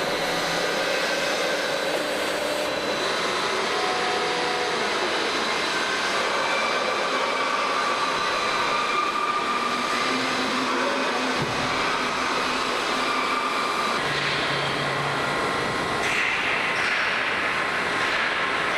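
Plate rolling machine running: a steady mechanical drone with a few faint whines that come and go.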